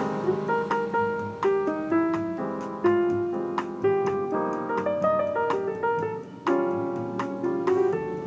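Background music: a piano playing a melody of separate struck notes.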